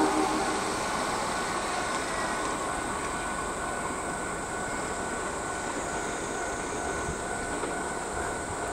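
Electric commuter trains running through the station: the running noise of a receding Hanshin 1000 series train eases off in the first second, then settles into a steady rumble with a faint high whine as a Kintetsu express approaches.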